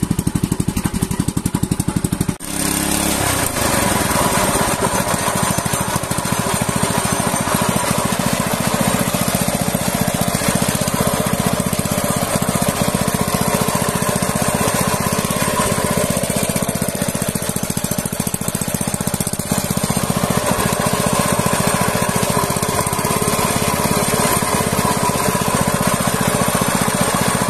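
Small boat engine running steadily. About two and a half seconds in, the sound changes abruptly and its pitch falls before the engine settles back into steady running.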